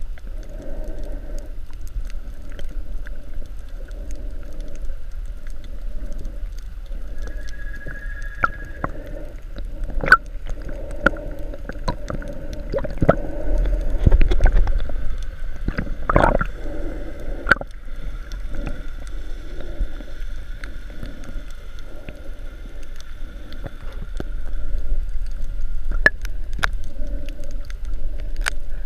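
Underwater sound through a GoPro Hero 3's waterproof housing while snorkelling: a muffled wash of moving water that pulses softly about once a second, with scattered sharp clicks and a louder gush about halfway through.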